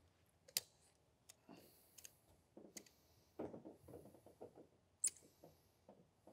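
Faint clicks, taps and rustling as a tube of sealing mastic is handled and run around a roof drain's flange. Two sharper clicks stand out, one about half a second in and one about five seconds in.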